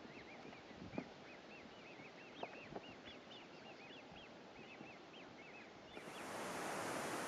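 A bird calling over and over with short rising chirps, several a second, with a few faint knocks. About six seconds in, this gives way to a louder, steady rushing hiss.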